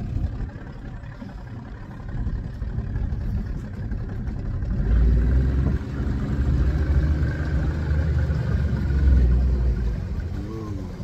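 1983 Evinrude 70 hp two-stroke outboard motor running under way, getting louder about halfway through as it's throttled up, then falling away near the end. The owner takes the fall-off for the motor starving for fuel when throttled up.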